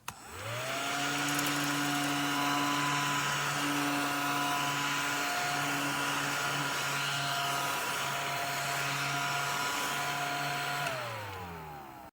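Small battery-powered mini desktop vacuum cleaner switched on: its motor spins up with a rising whine, runs steadily for about ten seconds, then winds down near the end as it is switched off.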